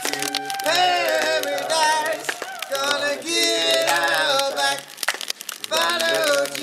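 Music: a song with a voice singing wordlessly over instrumental backing and a steady bass line.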